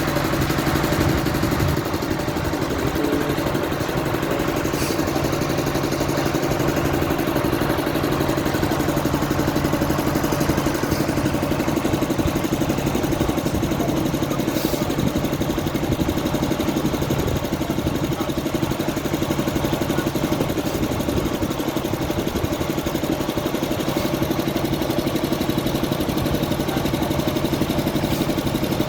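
Heavy diesel engine running steadily at idle, with an even low hum that holds one pitch.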